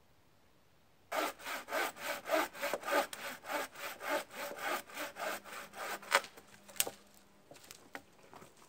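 Homemade bushcraft bow saw, its frame a bent branch, cutting through a dead branch on the ground: quick, even strokes of about four a second that start about a second in and stop after about five seconds. A single sharp crack follows, then a few light clicks.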